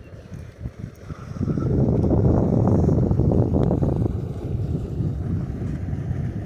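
Wind buffeting the microphone outdoors on the water. It becomes a loud low rumble for a couple of seconds about a second and a half in, then eases.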